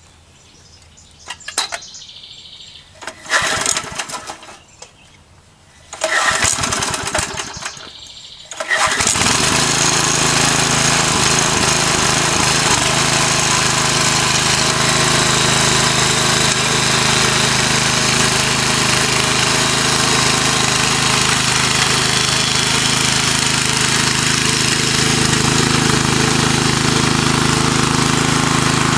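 Small gasoline engine of a front-tine rototiller being pull-started: several short bursts from the starter pulls before the engine catches about nine seconds in. It then runs steadily as the tines dig through the garden soil.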